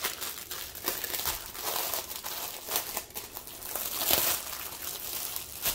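Clear plastic bag holding packets of diamond painting drills crinkling and rustling as it is handled, in irregular bursts of small crackles.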